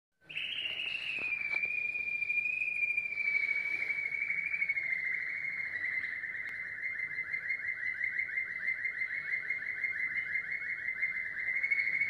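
A caged finch singing one long unbroken trill that starts just after the beginning. Its pitch sinks slowly, and from about five seconds in it turns into fast repeated notes.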